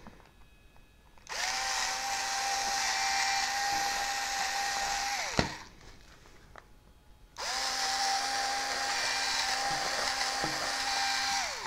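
Cordless drill running in two bursts of about four seconds each with a steady whine. The pitch rises as it spins up and drops as it stops. It is boring bolt holes for control horns through a balsa wing.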